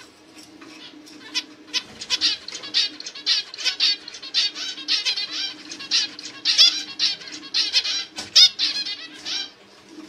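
Male zebra finch chirping in a fast run of short calls, starting about a second in, busiest and loudest in the middle, and stopping shortly before the end.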